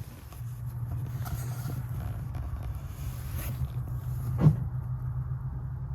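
A steady low rumble, with faint rustling and one sharp knock about four and a half seconds in.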